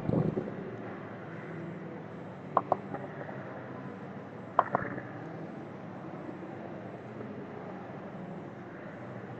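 Steady background noise with two quick pairs of sharp clicks, about two seconds apart, from operating the computer while modelling.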